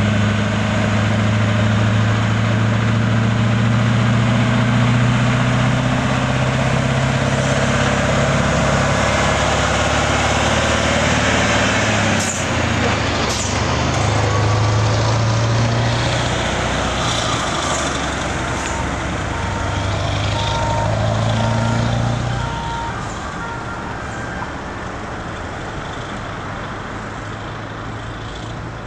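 Scania 4-series truck's V8 diesel pulling a heavy oversize load past, a loud steady low drone. It fades as the truck moves away about three-quarters of the way through.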